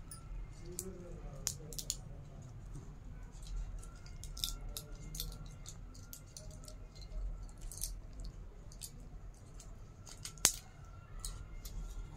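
Faint scattered clicks and scrapes of a metal spoon against a steel plate as cake is eaten, with one sharper click about ten seconds in, over a low background hum.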